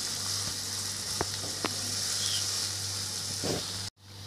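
Chopped onion, tomato and green chilli sizzling in hot oil in a kadhai as they are stirred with a wooden spatula, which knocks lightly against the pan a few times. The sound drops out abruptly for a moment near the end.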